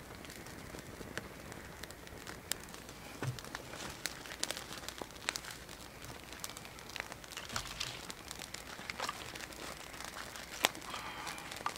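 A newly lit campfire of dry conifer twigs and split kindling crackling, with irregular sharp pops and snaps. Near the end, split wood is set onto the fire with a sharper knock.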